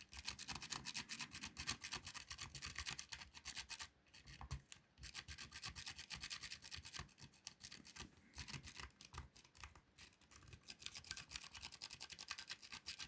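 Rake pick scrubbed rapidly in and out of a 5-pin euro cylinder lock under tension, a fast rattling scratch of metal on the pins, with two brief pauses. Raking this way does not open the lock.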